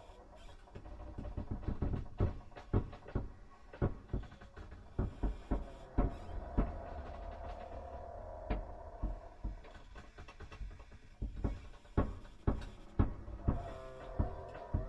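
Ghost sound effect: irregular knocks and bangs over a low rumble, with a wavering eerie tone that rises in the middle and again near the end.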